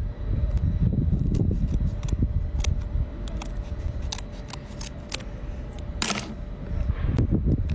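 Kitchen scissors snipping through the hard shell of a cooked king crab leg: a series of sharp, irregular clicks and cracks, with a longer crackle about six seconds in. A steady low rumble lies underneath.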